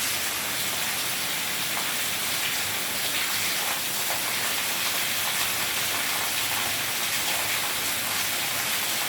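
Heavy rain falling in a steady downpour, a dense even hiss of drops hitting the ground and standing water.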